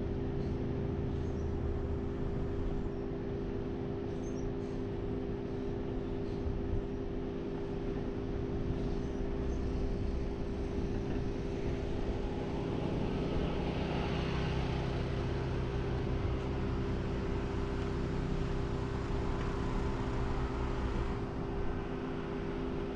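Steady vehicle running noise: a low rumble with a constant hum, swelling for a few seconds about halfway through.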